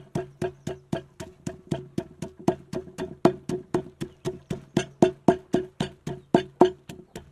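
Wooden pestle pounding red chilies and garlic in a wooden mortar: quick, even knocks of wood on wood, about four a second, without a break.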